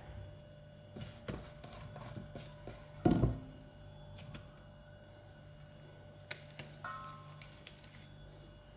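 Oiled hands working soft yeasted bread dough: faint squishing and light taps as portions are pulled from a steel bowl and rounded into balls, with one louder dull thud about three seconds in. A steady low hum runs underneath.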